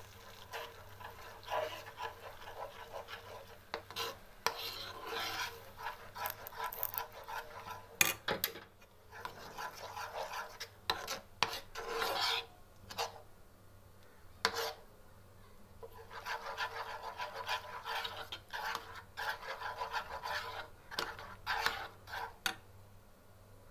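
Metal spoon scraping and stirring thick white sauce in a steel pan, in irregular rasping strokes with a couple of short pauses.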